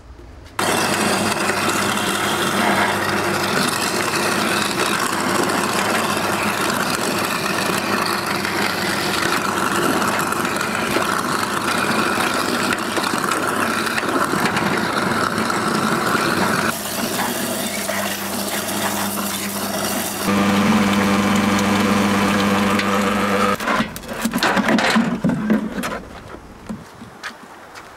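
Sink garbage disposal running and grinding apple peels and cores: a steady motor hum under a dense grinding noise that shifts as the load changes. It switches off about 23 seconds in, followed by a few clunks.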